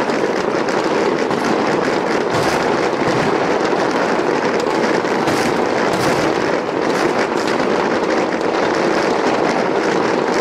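A starmine barrage of aerial fireworks: a dense, unbroken rumble of overlapping bursts and crackling, with sharper bangs standing out every few seconds.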